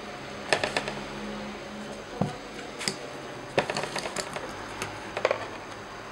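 Irregular small clicks and light taps of a Nikon 50mm f/1.8 lens and its plastic lens cap being handled and set down on a table, with a run of quick clicks about midway.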